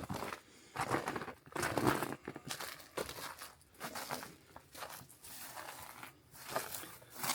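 Footsteps crunching through snow, an uneven series of steps.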